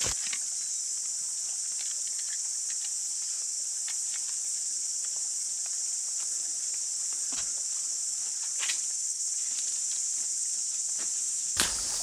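Steady high-pitched insect chorus, typical of summer cicadas in the bush, with a few light clicks and rustles in the leaf litter. Near the end, louder knocks and scraping start as digging with a spade begins.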